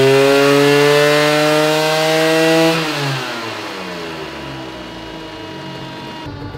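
Vespa PX 200 with a 252 cc Quattrini two-stroke engine and a Posch Performance Resi Tourer exhaust on a roller dyno, revving steadily higher in a full-throttle measuring run. About two and a half seconds in the throttle closes, the sound drops sharply and the revs fall away as the engine and roller wind down, marking the end of the run.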